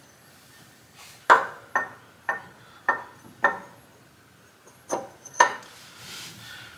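Sharp metallic clicks and knocks, about seven in two irregular groups, as an aluminum water pump pulley is fitted onto the water pump hub and shifted about while its bolt holes are lined up.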